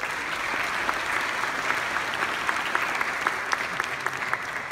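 Audience applauding, with sharp individual claps from someone close by standing out over the crowd.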